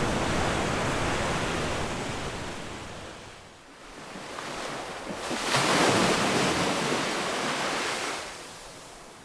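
Ocean waves breaking and washing up the shore. The surf fades about a third of the way in, swells again to its loudest just past the middle, then slowly dies away near the end.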